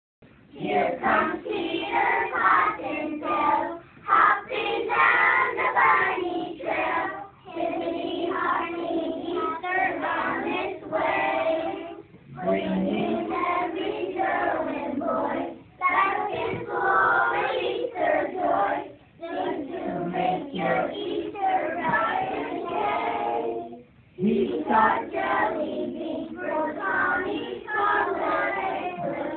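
A class of young children singing a song together, in phrases of a few seconds with short pauses for breath between them.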